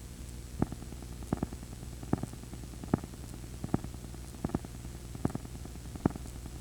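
Audio from a VHS tape player running past the end of a recording: a steady low hum and hiss from the blank tape, broken by sharp clicks at an even beat of about one every 0.8 seconds, a few of them doubled.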